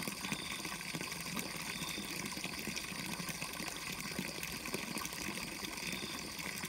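Water pouring steadily from a pipe into a pond, a continuous splashing stream.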